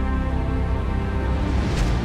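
Background music of sustained, held notes, with a brief rushing swell near the end.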